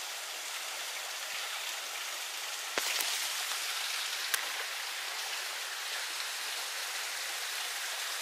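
Thin waterfall spattering down a rock face: a steady, even hiss of falling water, with a sharp click near three seconds in and another a second and a half later.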